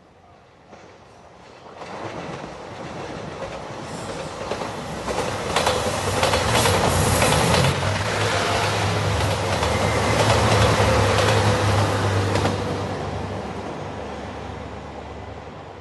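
JR Shikoku 2700 series diesel limited express train passing close by. It grows from about two seconds in and is loudest from about five to twelve seconds, with a run of wheel knocks and a steady low diesel engine hum, then fades away.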